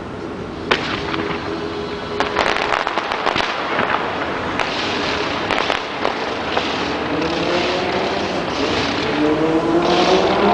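Fireworks crackling and popping in quick clusters through the first half, followed by a pitched tone that rises steadily over the last few seconds.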